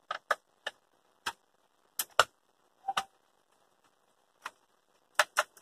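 Irregular sharp clicks and taps from a screwdriver and hands working on the plastic housing of a Philips steam iron as it is being taken apart, about a dozen in all, some in quick pairs.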